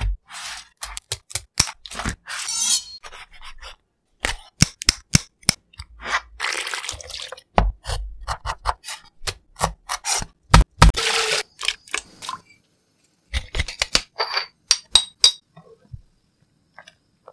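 Close-miked kitchen sounds in quick succession: sharp knocks of a knife chopping on a wooden cutting board and clicks from handling a spiny lobster's hard shell, with several short stretches of scraping noise between them.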